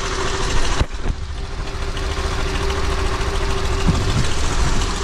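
Freshly rebuilt Honda Activa scooter's single-cylinder four-stroke engine idling steadily.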